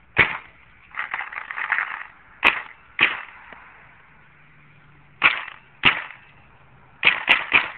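Paintball marker firing single shots, each a sharp crack: about eight shots, irregularly spaced, the last few in quick succession near the end. About a second in there is a second-long stretch of rough, crackly noise.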